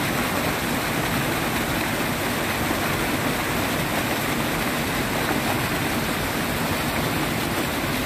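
Steady rush of river water pouring over a small concrete weir.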